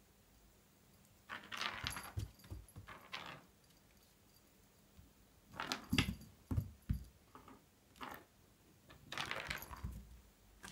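A cat's paws thudding and claws scrabbling on bare wooden floorboards in several short flurries as it pounces and runs, with quiet gaps between.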